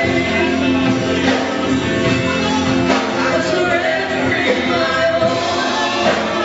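Live church worship band playing with singing, drums and sustained chords echoing in a large hall.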